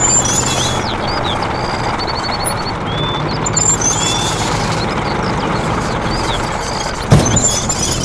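Steady engine-like rumble, with birds chirping over it, and a single sharp knock about seven seconds in.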